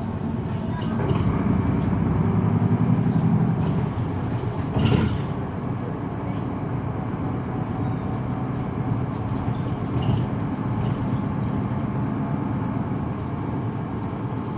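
Solaris Urbino 18 articulated bus's DAF 9.2-litre six-cylinder turbo diesel running on the move, louder for the first few seconds and then steadier, with a single thump about five seconds in.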